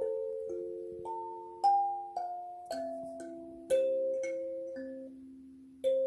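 Kalimba playing a slow lullaby melody: plucked metal tines ring and fade, often two or three notes sounding together, about two notes a second, with a short pause before a last note near the end.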